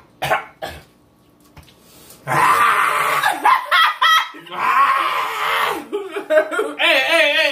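A couple of short coughs near the start, then loud breathy shrieks and hollering with a wavering, pitched cry near the end: people reacting to the burn of extremely spicy chicken wings.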